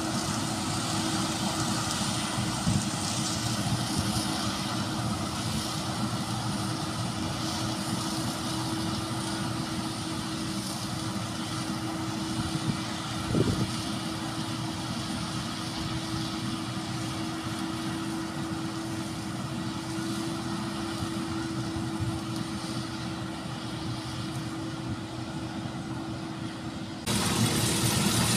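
Claas Tucano combine harvester working in the crop, its engine and threshing gear running steadily with a constant hum. There is one short knock about halfway, and near the end the sound turns abruptly louder.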